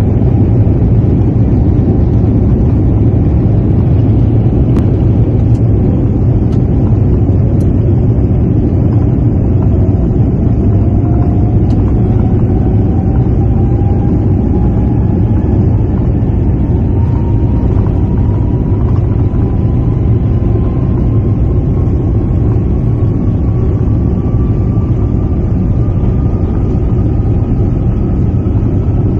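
Airbus A350-900's Rolls-Royce Trent XWB engines and runway rumble heard from inside the cabin during the take-off roll, a loud, steady, heavy roar. From about a quarter of the way in, a faint whine climbs steadily in pitch as the aircraft gathers speed.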